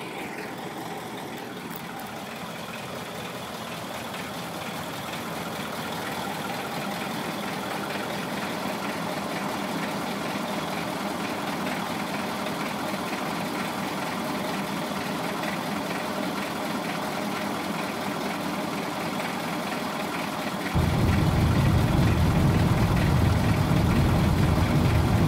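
Steady road and engine noise of a car driving along a highway, heard from inside the car. About 20 seconds in it jumps suddenly louder, with a much stronger low, deep component.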